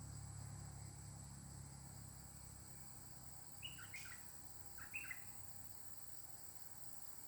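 Bulbul (merbah lekir) giving two short calls about a second apart, partway through, over a steady high-pitched insect drone. A low hum fades out over the first few seconds.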